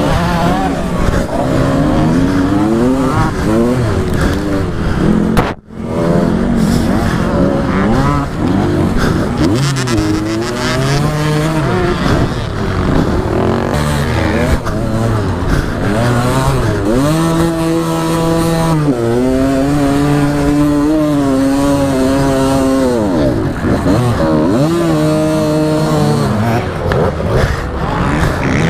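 1996 Kawasaki KDX 125 two-stroke dirt bike engine revving up and dropping back again and again as it is ridden through the corners and climbs of a motocross track. The sound cuts out for a moment about six seconds in.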